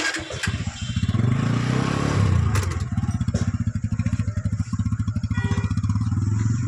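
TVS Apache RTR 160 2V motorcycle's single-cylinder engine running close by with an even, rapid pulse. It revs up about two seconds in, then holds a steady speed.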